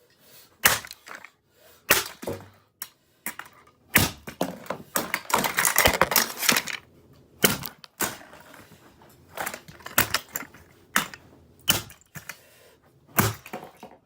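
About a dozen irregular, sharp whacks on the plastic body of a Dirt Devil Classic race car vacuum as it is smashed, with a clatter of cracking plastic and loose parts a few seconds in.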